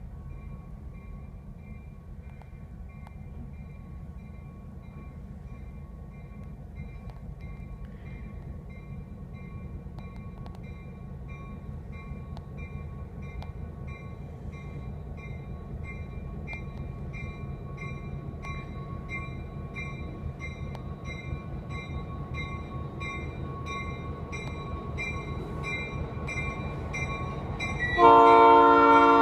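EMD SD9 diesel-electric locomotive backing up, its diesel engine rumbling and growing slowly louder as it approaches, with its bell ringing in steady, evenly spaced strokes. Near the end the locomotive's air horn sounds, loud and abrupt.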